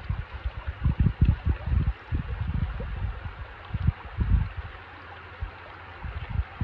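Steady rush of flowing stream water, with irregular low rumbles of wind buffeting the microphone, mostly in the first two-thirds.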